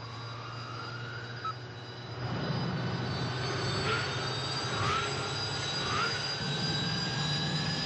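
Centrifuge trainer running up to speed: a motor hum and a whine that climbs steadily in pitch, getting louder about two seconds in, with a whoosh about once a second as the spinning arm sweeps past.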